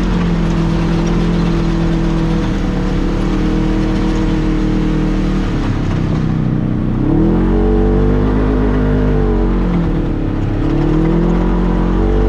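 Polaris RZR XP 1000 side-by-side's parallel-twin engine running on the trail at a steady pitch. About halfway through it eases off, then revs back up, and it dips and climbs again near the end.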